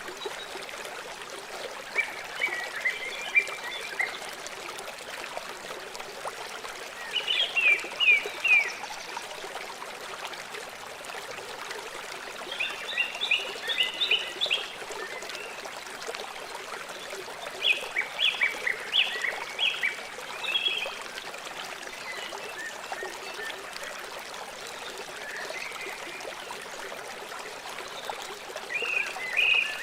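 A river or stream running steadily, with a bird calling over it: short bursts of quick, high chattering notes that come back about every five seconds and are the loudest sounds.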